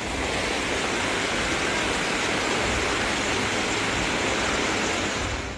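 Floodwater rushing fast across a road and pouring over its edge like a waterfall: a steady, loud rush of water.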